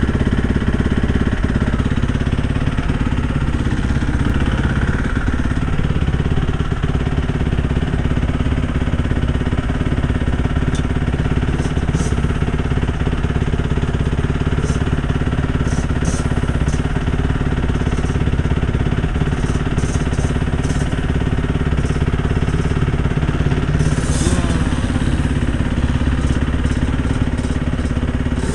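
Motocross bike engine idling steadily, with light clicks now and then.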